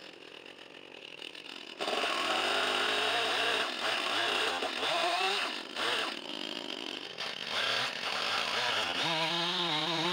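Two-stroke gas chainsaw coming in loud about two seconds in, then running with its engine pitch rising and falling as it is revved up and down.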